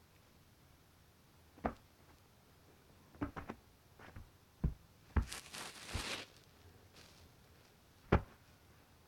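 Sphynx cat playing with a string toy: scattered soft knocks and thumps from its paws and body moving against the couch and chair, with a short rustle about five to six seconds in.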